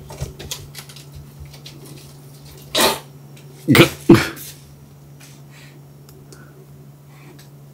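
An angry adult cat hissing and spitting in three short, sharp bursts about three and four seconds in, warning off a kitten. Light clicks of claws scrabbling on the cat tower come before.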